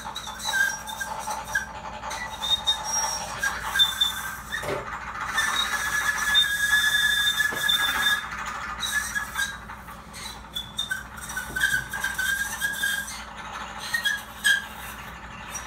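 High, thin squealing tones blown through a trumpet mouthpiece held to the lips: short squeaks and little pitch glides, with one longer held squeal about six to eight seconds in, as an extended technique in free improvisation.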